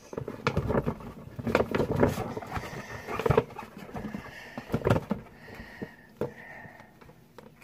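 Irregular rustling, crinkling and clicks of hands opening a mystery toy's packaging close to the microphone.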